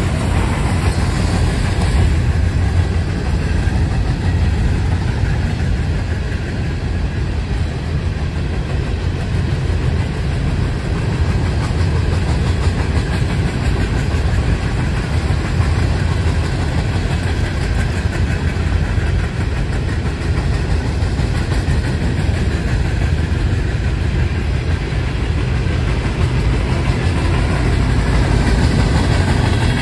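Long freight train of coal cars rolling past on the rails: a steady, loud, deep rumble with no distinct clicks or horn.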